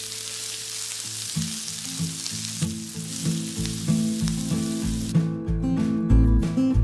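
Chopped onions sizzling as they fry in a pan. Background music with a pulsing bass comes in about a second and a half in. Near the end the sizzling cuts out and the music takes over.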